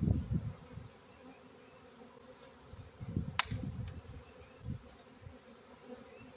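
A swarm of honeybees buzzing around an open hive box in a steady hum, with low thumps at the start and about three seconds in, a sharp click, and faint high chirps.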